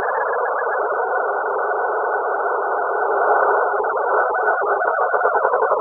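Synthesized electroacoustic texture: a dense, grainy swarm of short electronic chirping tones in the middle range, held steady, pulsing quickly and a little louder in the second half.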